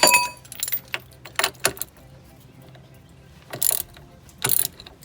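Hand ratchet with a 3/4-inch deep socket clicking in short bursts on its return strokes as the outer tie rod nut is worked loose. A sharp metal clink with a brief ring comes right at the start.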